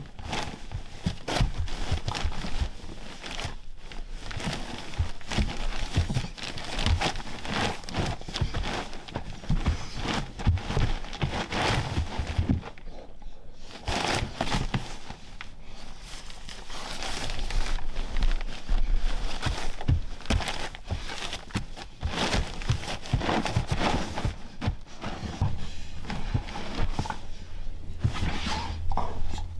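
Pregnant Weimaraner nesting before whelping, digging at and rustling the fleece blankets in her whelping box: a long run of irregular scratching and crumpling fabric sounds with brief lulls.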